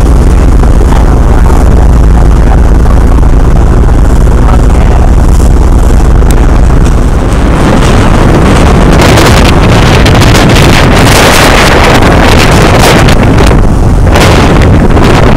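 Wind buffeting the microphone over the steady low rumble of a motorboat's engine and rushing water as the boat runs through choppy sea. The wind grows much heavier, in hard gusts, about nine seconds in.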